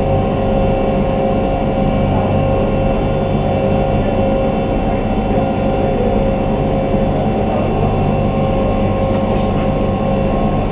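Resort ferry boat's engine running steadily under way, a constant drone with a low hum and several steady tones.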